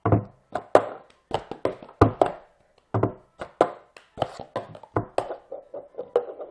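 Cup-song rhythm: hand claps, taps on a cup and the cup knocked down onto a tabletop, a few hits a second in a steady pattern, with heavier thumps from the cup striking the table about 2 and 3 seconds in.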